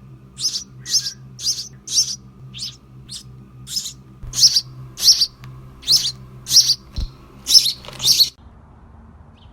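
A bird chirping over and over, short high-pitched chirps about one every half second, then stopping near the end. A faint steady low hum runs underneath.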